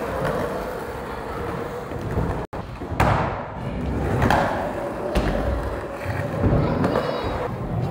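Skateboard wheels rolling on a concrete floor, with a few thumps of boards and feet landing on the ground.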